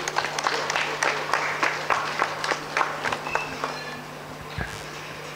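Audience clapping, with individual claps distinct, dying away about four seconds in.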